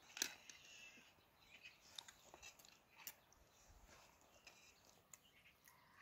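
Faint eating sounds: chewing and light clicks of metal spoons, the loudest click just after the start.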